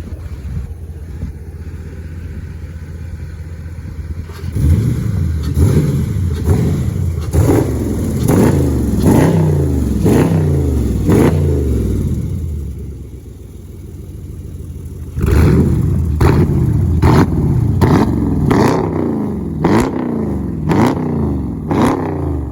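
Dodge Durango's 5.7 Hemi V8, fitted with shorty headers feeding the stock exhaust, idling and then revved in quick throttle blips, one after another. The revving comes in two runs, settling back toward idle in between.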